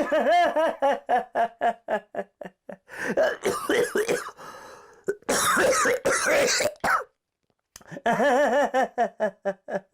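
A man's loud wordless vocal outburst: a quick run of short pitched shouts, then a long raspy yell from about five to seven seconds in, a brief silence, and a few more shouts near the end.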